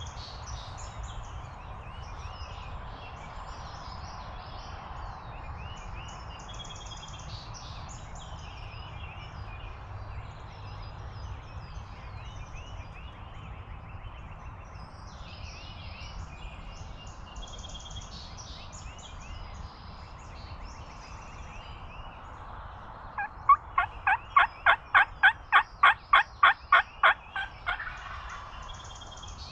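A loud run of about fifteen evenly spaced turkey yelps, roughly four a second, lasting about four seconds near the end, against songbirds chirping.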